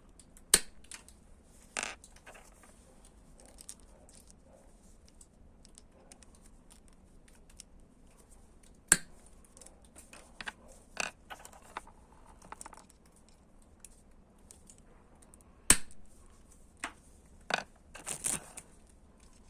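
Knipex bolt cutters snapping through 5 mm steel wood screws: three sharp, loud cracks spread through, with smaller clicks and rattles of handling between them.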